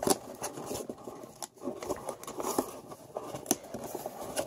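A white cardboard tuck-top box handled and worked open by hand: scattered light taps, scrapes and rubbing of the cardboard lid and flaps.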